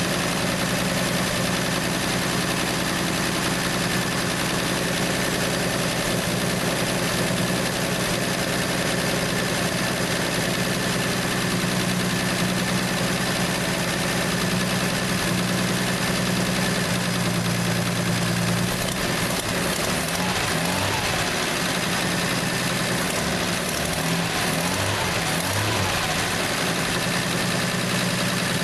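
Plymouth Valiant slant-six engine idling steadily. About two-thirds of the way through, the idle wavers unevenly for several seconds, then settles again.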